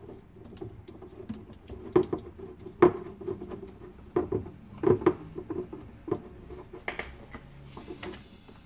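Irregular small clicks, scrapes and knocks of hands turning and seating a plastic John Guest angle stop valve on the cold-water supply line under a sink, with a few sharper knocks spread through.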